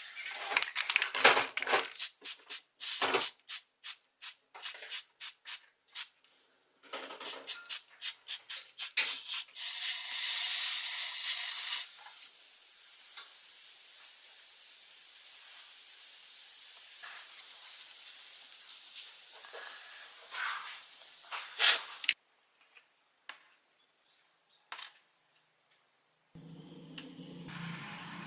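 Small hard parts and tools clicking and clattering many times, then a loud spray hiss for about two seconds, followed by a quieter steady hiss lasting about ten seconds. A few more clicks follow, and near the end comes a low humming sound with several steady tones.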